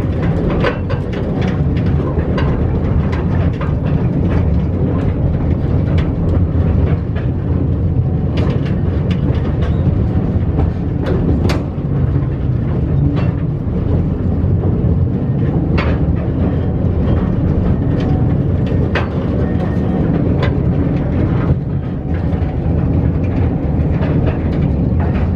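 Electric mine trolley train running on rails, a steady low rumble as the cars rattle and shake, with irregular sharp clicks on top.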